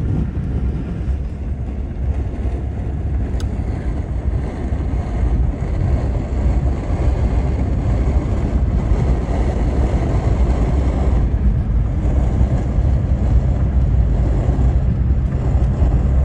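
Steady low rumble of a car on the move, heard from inside the cabin: tyre, road and wind noise, slightly louder in the second half.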